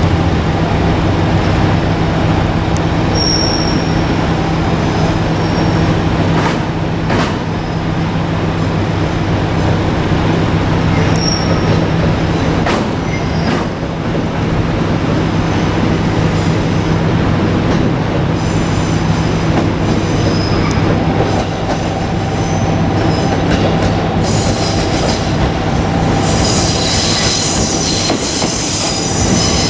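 JR Kyushu 787-series electric express train moving slowly out of the depot, with a steady low hum from the train. Short, high wheel squeals come about 3 and 11 seconds in, and a louder high-pitched squeal and hiss builds near the end.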